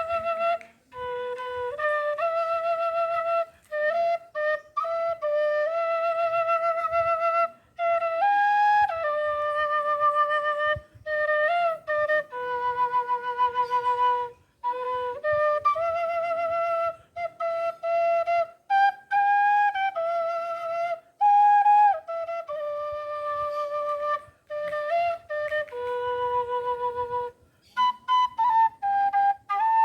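Quena (Andean notched flute) playing a slow solo melody with vibrato on the held notes, phrases broken by short breaths.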